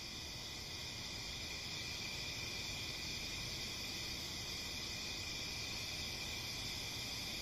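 Chorus of Brood X periodical cicadas: a steady, dense, high-pitched drone with no breaks.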